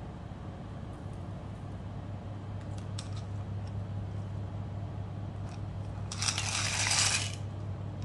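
Dry fusilli pasta poured from a bowl into boiling water in a rice cooker pot: a rushing clatter and splash lasting about a second, starting about six seconds in. A steady low hum runs underneath, and a few light clicks come around three seconds in.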